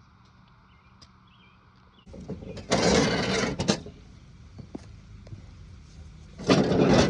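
Two loud bursts of scraping or rushing noise, each about a second long, one about three seconds in and one near the end, after a quiet start.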